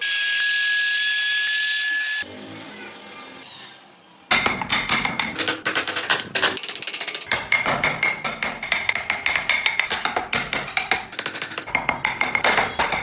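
A power tool runs with a loud, steady, high-pitched whine for about two seconds and stops. From about four seconds in, rhythmic percussive background music plays.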